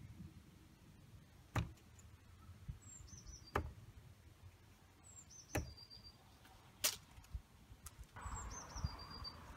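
Steel-tip darts thudding into a Winmau Blade 4 bristle dartboard: four sharp hits in about five seconds. A bird repeats a short descending chirp in the background.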